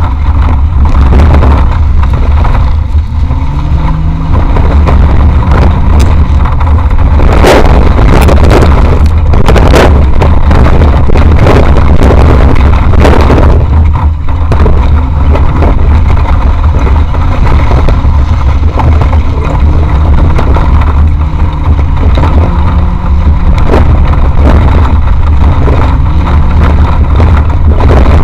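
Off-road competition vehicle driven hard over rough ground, heard from an onboard camera: a loud, heavy low rumble with the engine note rising and falling. There are a few short, sharp noisy bursts about a third of the way through.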